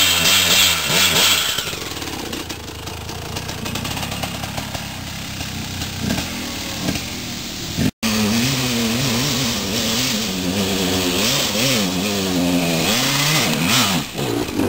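Motorcycle engine revving, its pitch climbing and falling over and over. The sound drops out for an instant about eight seconds in.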